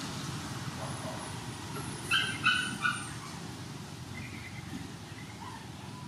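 An animal calling three times in quick succession, short high yelps about two seconds in, over a steady low background rumble.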